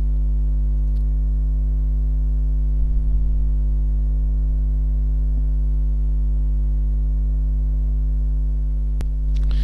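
Steady electrical mains hum in the recording chain, a constant stack of low tones, with a single click near the end.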